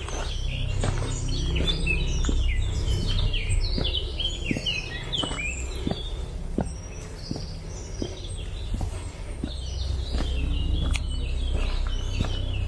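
Small birds chirping and singing in the trees, many quick falling chirps, over footsteps on a gravel path at a steady walking pace and a low steady rumble.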